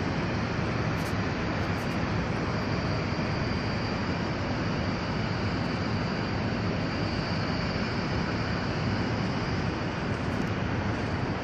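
Boat's outboard motor running steadily: a constant low drone with an even hiss over it.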